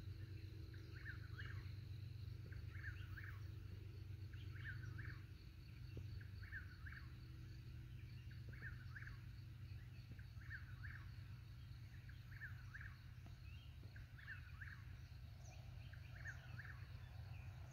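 An animal's short call repeated about once a second, faint, over a thin high trill and a low steady rumble of wind.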